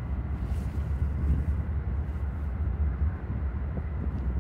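Wind buffeting the microphone: a low, gusty rumble that rises and falls.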